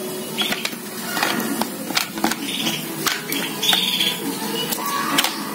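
Plastic pressure-sprayer bottle being handled as its pump head is fitted, giving a scatter of small clicks and knocks.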